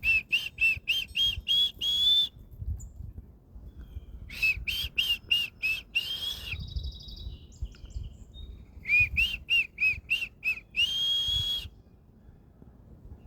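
A songbird singing three loud phrases of clear, repeated whistled notes, about three or four a second. Each phrase ends in a longer held note. A fainter, higher twittering from another bird comes in between the first two phrases.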